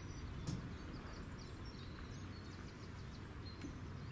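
Small birds chirping and singing over a low, steady outdoor rumble, with a brief click about half a second in.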